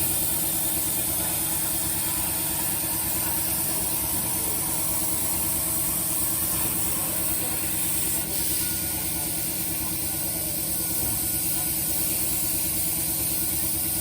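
CNC plasma cutting machine running: a steady high hiss of the plasma arc and compressed air over a steady motor hum, with a brief dip about eight seconds in.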